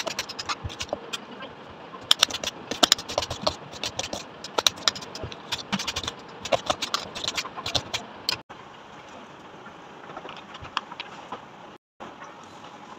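Kitchen knife chopping red onion on a stone countertop: rapid, irregular knocks of the blade striking the stone. About eight seconds in, the chopping stops abruptly and a quieter, steady noise with a few faint ticks follows.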